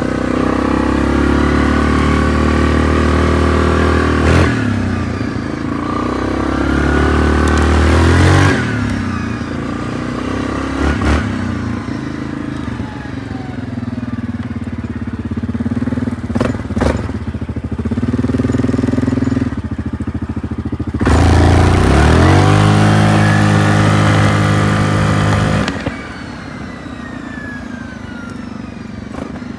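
A 2024 Yamaha Grizzly 700 ATV's single-cylinder engine running through an aftermarket exhaust tip, pulling up in pitch under throttle in several surges and easing off in between. The longest, loudest pull comes about two-thirds of the way in, and it drops back to a lower, steadier run near the end.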